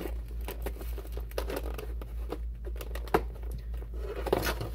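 Thin plastic lid of a cookie cake container being worked off: crinkling and crackling with sharp clicks, the loudest a little after three seconds in, over a steady low hum.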